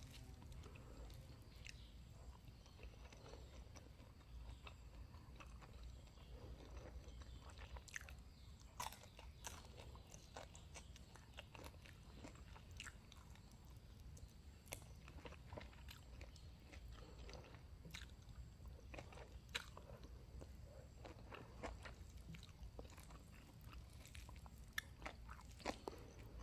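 Faint close-miked chewing: soft, irregular clicks and crunches of someone eating, over a low steady hum.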